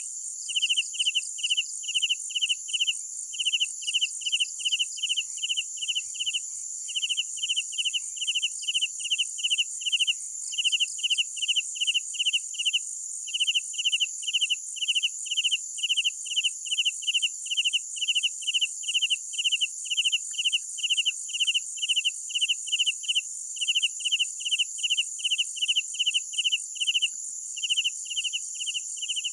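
Crickets chirping at night: a loud cricket repeats short chirps about three times a second, with a few brief pauses, over a steady high-pitched insect trill.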